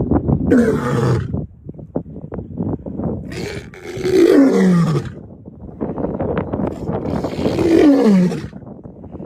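Lion roaring: three long moaning roars, each falling in pitch over about a second and a half, with quick grunting pulses between them.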